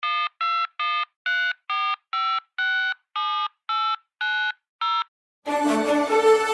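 Telephone keypad touch-tones (DTMF): eleven short two-tone beeps, about two a second, each key giving a different pair of notes. Music starts about a second before the end.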